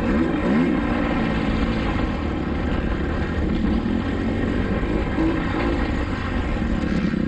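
Dirt bike engine revving up and falling back again and again as it is ridden hard around a motocross track.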